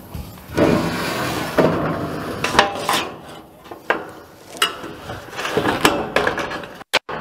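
Ribbed sheet-metal roofing panel being handled and laid onto the roof: metallic rattling and clanking with several sharp knocks.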